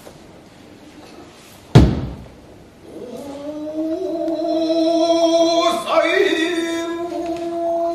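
A single loud thud about two seconds in, then a jōruri chanter's voice holding one long drawn-out chanted note from about three seconds on, rising slightly as it begins.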